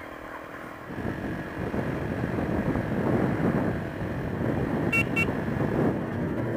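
Riding noise from a Honda XR125 trail bike on the move, a steady rush of wind and engine that grows louder about a second in. A horn gives two quick beeps about five seconds in.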